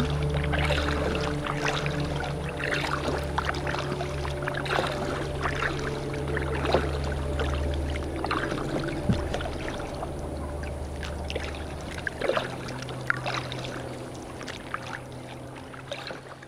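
Water splashing and lapping against the hull of a moving kayak, close to the camera, over a steady low hum. It fades away near the end.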